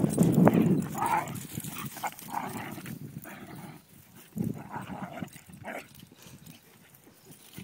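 Whippets at rough play giving a series of short barks and yips, with a loud low rustle at the start.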